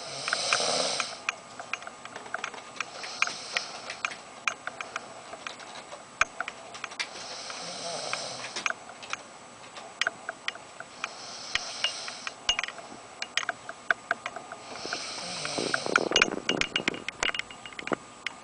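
Slow snoring: a breathy, hissing snore about every four seconds, five in all. Sharp clicks are scattered throughout.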